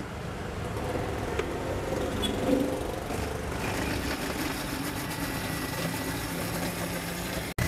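Countertop blender running steadily, blending a chocolate smoothie mix.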